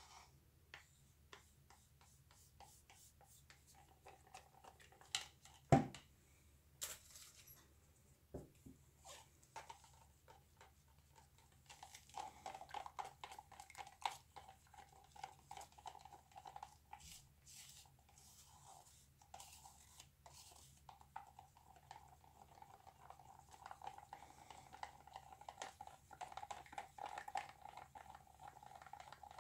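Stir stick scraping and tapping around a plastic cup as acrylic paint is mixed, with a couple of sharper knocks about five to six seconds in and steadier stirring in the second half.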